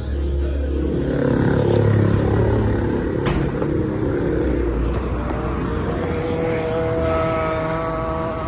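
Street traffic noise with a motor vehicle engine running close by. A steady engine tone comes in about six seconds in, and there is a single sharp click about three seconds in.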